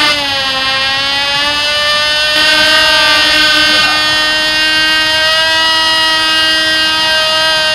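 Cox TD .049 tiny two-stroke glow engine on a control-line model airplane running at high speed in flight, a steady, high buzzing whine. Its pitch dips briefly right at the start and then creeps back up.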